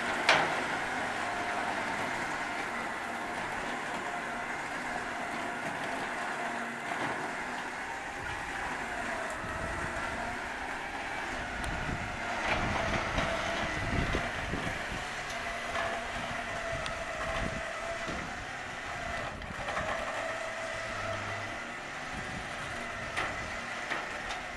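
Winch motor whining steadily as it pulls a car up the ramps onto a tilt trailer, its pitch wandering slightly with the load. Low knocks and thuds come partway through.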